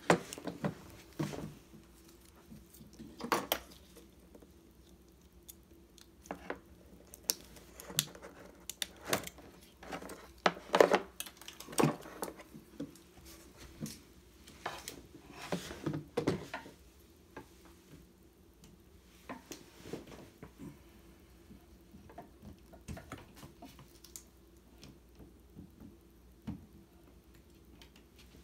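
A rotary tool and its accessory kit being handled during setup: sporadic clicks, knocks and clatter of hard plastic and small metal parts, busiest through the middle and sparser near the end.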